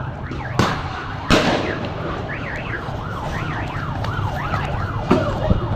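Emergency-vehicle siren wailing in a fast, repeating up-and-down yelp over a steady low rumble. Two sharp bangs come in the first second and a half, the second one the loudest sound.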